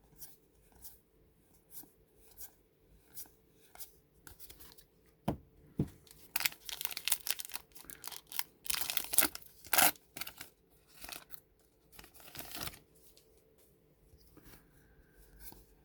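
A baseball card pack's wrapper being torn open and handled: a run of short rips and rustles, the loudest about six to ten seconds in.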